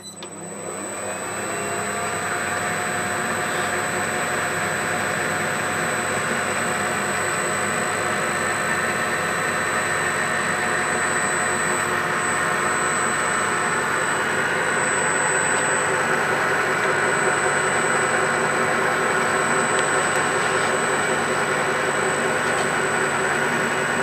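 Myford Super 7B lathe switched on with a click and coming up to speed over about two seconds, then running steadily. Its spinning brass bar drives a Stuart 10V model steam engine's flywheel through an O-ring, running in the new crankshaft.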